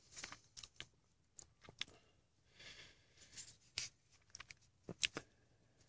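Faint, scattered clicks and light scrapes of a Detroit Series 60 DDEC V electronic unit injector being handled and turned over in the hands, with a soft rustle near the middle.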